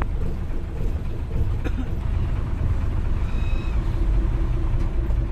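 Engines of a bus and other vehicles rumbling steadily in slow traffic, with a short high squeal about three seconds in.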